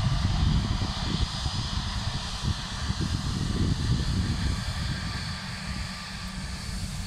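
Jet engines of an easyJet Airbus A320neo on the runway just after landing: a steady whine and hiss over a low, fluctuating rumble, easing slightly in level.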